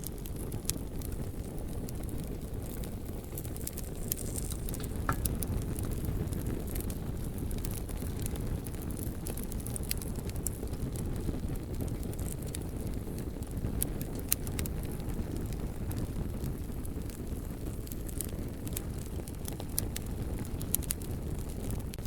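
A fire burning: a steady low rumble with scattered crackles and pops.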